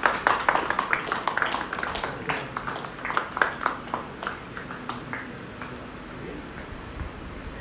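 A small group clapping unevenly, loudest at first and dying away over about four seconds, with murmured voices.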